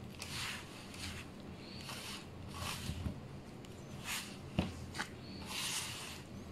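Bread dough being worked by hand: a series of soft, irregular strokes about every half second to second, with two sharp clicks past the middle, over a faint steady hum.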